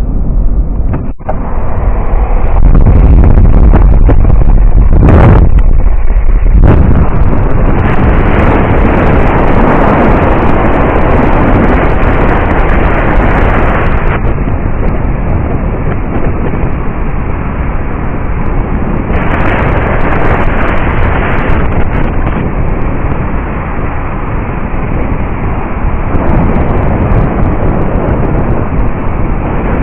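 Car driving, its road and engine rumble heavily buffeted by wind on the microphone, loudest in the first several seconds.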